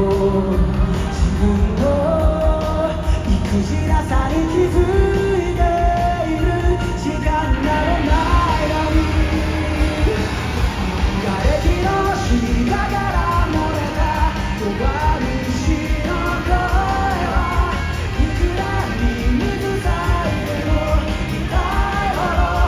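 Pop-rock band playing live, with a sung melody over drums, bass and guitars at full volume.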